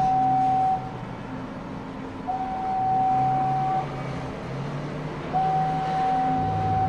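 Crane warning alarm sounding an electronic tone about one and a half seconds long, repeating about every three seconds, over a steady low machinery hum.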